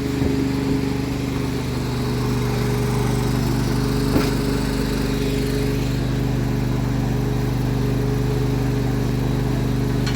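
A vehicle engine idling steadily, with one brief knock about four seconds in.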